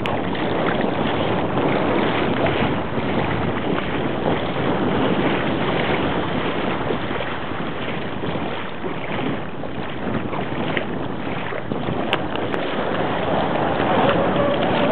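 Steady wind noise rushing over the microphone above choppy water.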